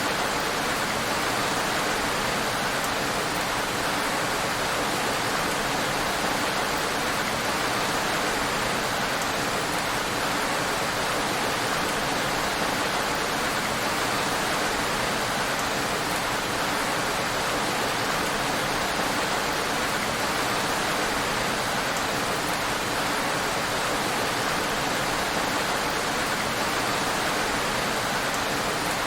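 Heavy rain falling steadily: an even, dense hiss with no single drops standing out.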